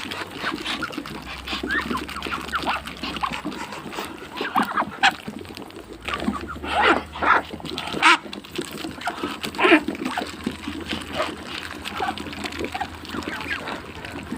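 Ducks and other poultry calling: a busy, continuous jumble of short calls, with a few louder ones around the middle.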